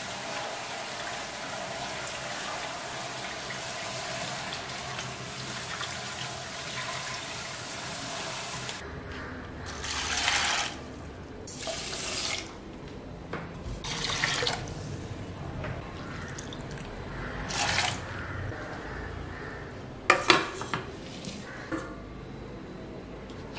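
Tap water running steadily onto millet in a plastic strainer over a stainless steel sink, stopping abruptly about nine seconds in. After it come short separate splashes of water and, near the end, a few sharp clinks of steel containers being handled.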